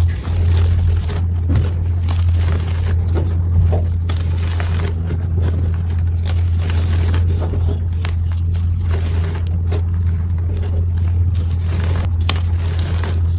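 Pink reformed gym chalk being crushed and crumbled, a continuous crunchy, crackling stream of many small cracks and scrapes, over a steady low hum.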